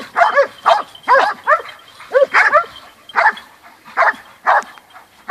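Several hunting dogs barking and yelping at a wild boar they have brought to bay. Short, high barks follow one another about twice a second, with several dogs overlapping at times.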